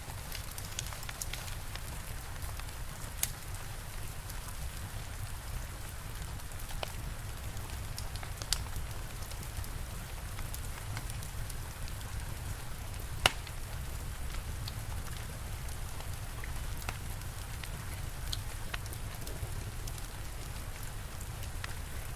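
Steady rain with a wood fire crackling, its sharp pops scattered through, the loudest about halfway through.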